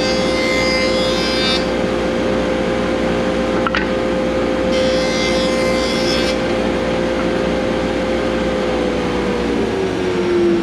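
Electric saw motor running with a steady whine, its blade cutting through hardwood twice, each cut adding a hiss for a second or two. Near the end the whine drops in pitch as the saw winds down after being switched off.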